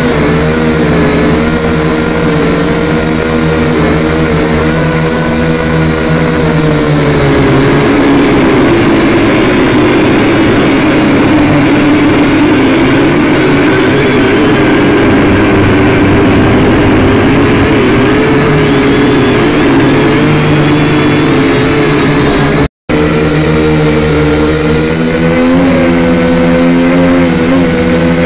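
Mobile telescopic crane's engine running continuously. Its note shifts and rises for a long stretch in the middle, as when the engine is sped up to drive the crane's work, then settles back. The sound breaks off for an instant near the end.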